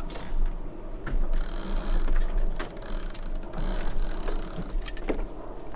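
Sailboat mainsheet being hauled and run through its ratchet blocks during a jibe, the blocks clicking and ratcheting in irregular runs.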